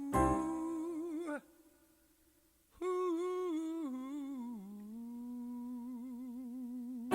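A man's solo voice singing a wordless 'ooh' with vibrato. The note breaks off about a second and a half in, and after a short pause a new phrase steps down in pitch and settles into a long held note.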